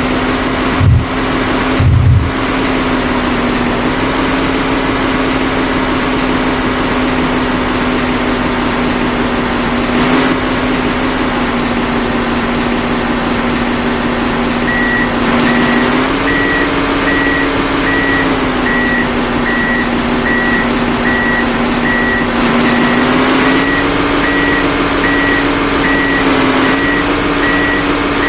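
Heavy diesel engine running steadily, its pitch stepping up and down a few times. About halfway in, a reversing alarm starts beeping about twice a second.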